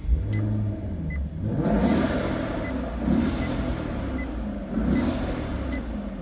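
Maserati engine firing up and being revved a few times, the revs swelling and falling back. A dashboard warning chime beeps steadily underneath.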